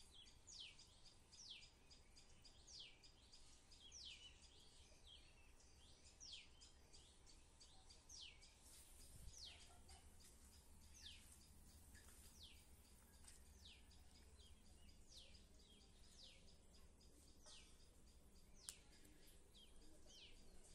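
Faint bird calls: a small bird repeating short, high chirps that each fall steeply in pitch, about one or two a second, over a low steady rumble.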